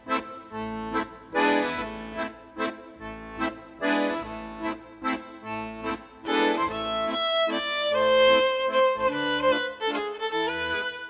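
Background music: an accordion playing chords on a steady beat over a bass line, with a held melody line coming in over it about six and a half seconds in.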